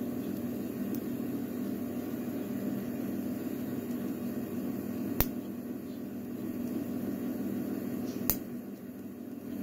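Two sharp clicks about three seconds apart as a tool works at the circlip on the back of a lock cylinder, over a steady low background hum.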